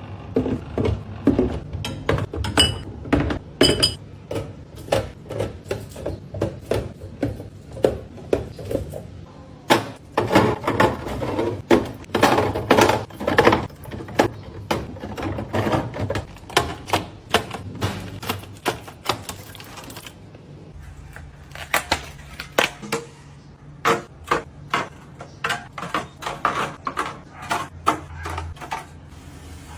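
Rapid clicking and clattering of plastic containers, bottles and jars being handled and set down one after another while restocking a fridge, several knocks a second, busiest in the middle, over a steady low hum.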